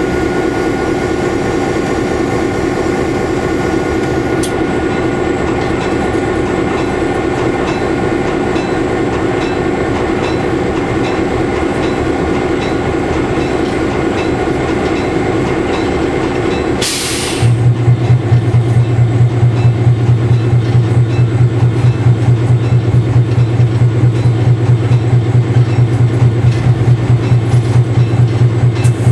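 Cab noise of an EMD FP7 diesel locomotive under way: its 16-cylinder EMD 567 diesel engine runs steadily along with running and track noise. About 17 seconds in there is a short hiss, and then a louder, low, pulsing drone takes over.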